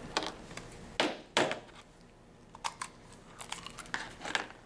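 Plastic parts of an EpiPen auto-injector being handled and set down on a table, giving a few sharp clicks and knocks. The loudest two come about a second in, and lighter clicks follow near the end.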